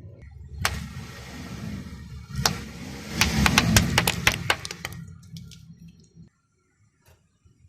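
A car tyre rolling over and crushing crunchy objects: a low engine and tyre rumble with a sharp crack about a second in, then a quick run of loud cracks and pops, before the sound dies away.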